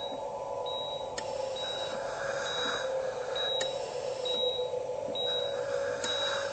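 A hospital patient monitor beeping: a short, high beep about once a second, over a steady low drone. A soft hiss comes and goes between beeps.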